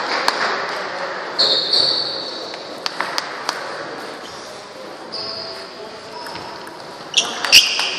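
Table tennis balls clicking off bats and tables, sharp irregular ticks from several tables at once, with short high squeaks of sports shoes on the wooden floor, the loudest one near the end, over background chatter.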